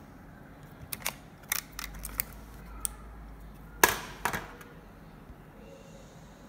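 A string of sharp plastic clicks and taps from hands handling a laptop's battery and case parts, ending with a louder double knock about four seconds in.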